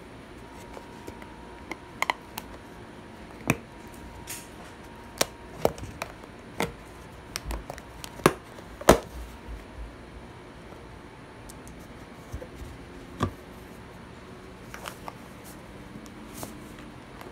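Hand-handling noise close to the microphone: a scattered series of sharp clicks and taps, busiest in the first half and thinning out toward the end.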